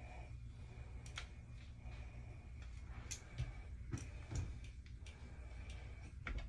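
Faint handling of a curling iron being worked through hair: a handful of sharp, scattered clicks and light taps over a low steady hum.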